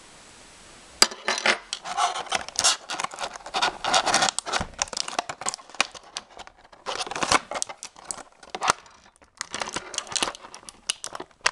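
Toy packaging being torn open and crinkled by hand: a dense run of irregular rips and crackles that starts sharply about a second in, with a short lull near the end.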